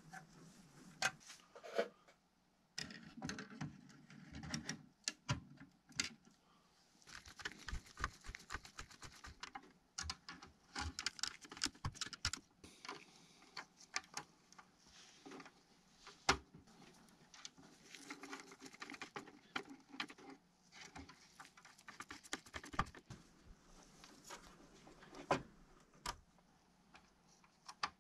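Close-up clicks, taps and scrapes of gloved hands handling and fitting together the plastic and diecast metal parts of a 1/18 scale model car, with irregular single clicks and stretches of rapid ticking.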